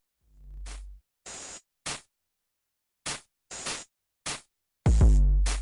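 Choppy bursts of static-like hiss cutting in and out abruptly, about seven short bursts with dead silence between them. A longer, louder burst near the end carries a low hum.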